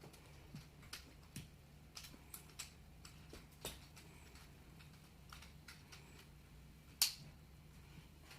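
Faint, irregular plastic clicks of twisty puzzles being turned by hand, with one louder clack about seven seconds in.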